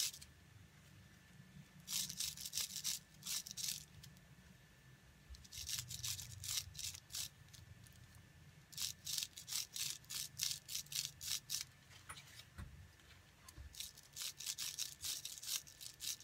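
Water brush bristles scrubbing quickly back and forth over plastic bubble wrap, in four runs of rapid, crisp strokes with short pauses between.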